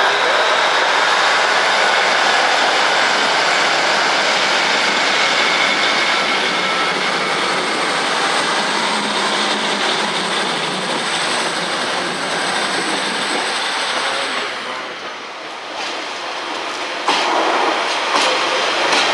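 A train running through the station, wheels clattering on the rails, with a faint thin high squeal in its second half. The train sound dies away about fourteen seconds in, and a few sharp knocks follow near the end.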